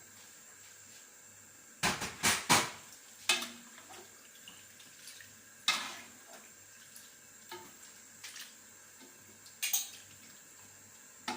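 Cookware clattering: a quick run of sharp metal knocks and scrapes about two seconds in, then single knocks every few seconds with quiet between.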